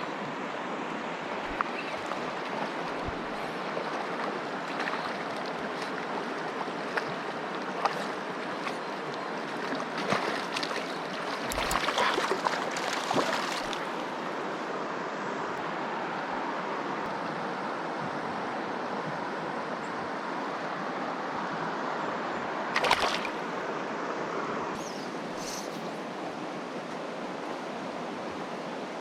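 Mountain creek water rushing steadily, with scattered clicks and knocks on top, a busier, louder stretch of them about twelve seconds in and a sharp knock about twenty-three seconds in.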